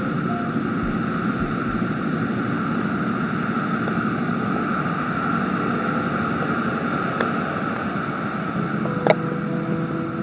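Steady city street noise: the hum and rumble of passing traffic, with a single sharp click about nine seconds in.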